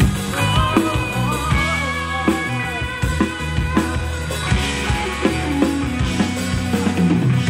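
Live rock band playing: a drum kit, electric guitar and bass guitar, with a wavering melodic lead line over a steady drum beat.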